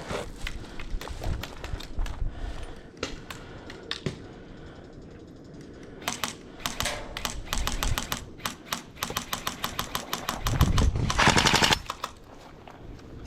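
Airsoft guns firing: scattered single shots at first, then a quick run of shots, and about ten seconds in a dense automatic burst of about a second, the loudest part.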